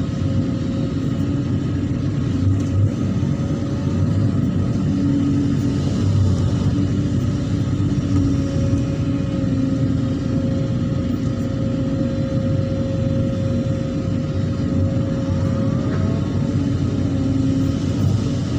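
Hydraulic excavator's diesel engine running steadily while working, with a steady whine over it that rises briefly near the end.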